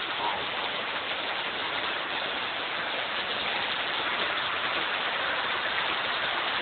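Steady hiss of water during flooding: an even, unbroken wash of noise with no separate splashes or drops standing out.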